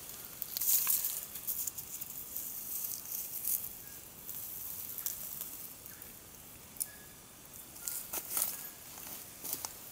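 Dry leaf litter, twigs and wood chips rustling and crackling in bursts as a hand pulls fibrous strands of debris up from the ground.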